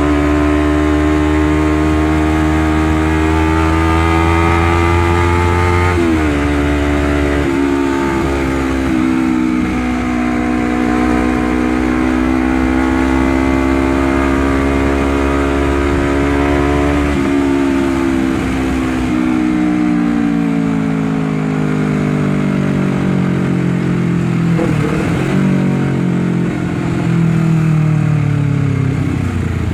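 Honda CBR250RR engine through a 3Tech Racing Evolution EVOX X3NRC aftermarket exhaust, ridden under throttle. The engine note climbs steadily and drops sharply at an upshift about six seconds in. It climbs again, then falls away slowly over the last dozen seconds as the throttle is eased.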